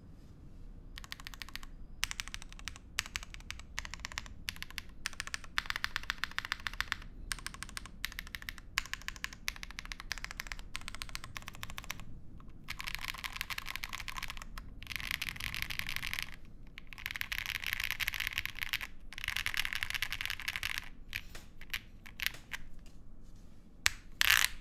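Typing on an AM Compact Touch (65 Less) mechanical keyboard with lubed Tecsee Honeydew switches, an FR4 plate, spring mount, Poron foam and Drop Keysterine keycaps. Quick runs of key clicks come in stretches of fast typing, with brief pauses between them, and one louder stroke near the end.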